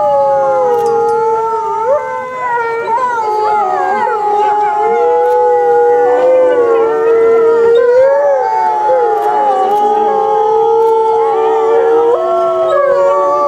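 A pack of timber wolves howling in chorus: several long howls at different pitches overlapping, some held steady and some gliding up and down.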